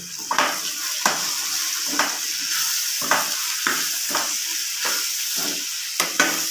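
Steel spoon stirring pieces of parwal (pointed gourd) in a metal pan, scraping about twice a second over a steady sizzle of frying. The freshly added spice powders are being mixed into the frying vegetable.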